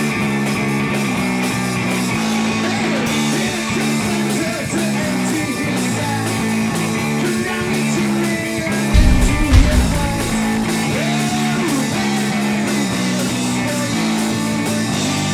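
Guitar-led rock music with a steady beat, and a loud low rumble lasting about a second, about nine seconds in.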